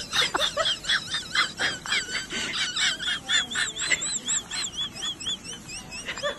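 A cat grooming itself, licking rapidly with about four to five wet licks a second, over a high squeaky tone that rises and falls in time with them.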